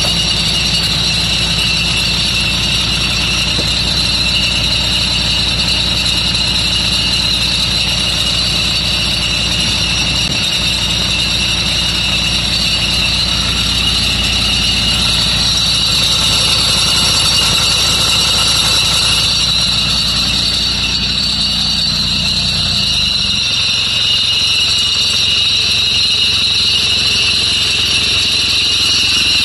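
Bus engine running steadily with a constant high-pitched whine over its low rumble; about three-quarters of the way through, the low rumble drops away while the whine carries on.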